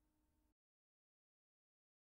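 Silence: a faint trace of room tone that drops to dead digital silence about half a second in.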